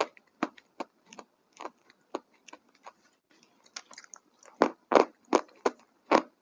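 Someone chewing crunchy food close to the microphone: sharp, irregular crunches a few times a second, louder and more regular from about four and a half seconds in.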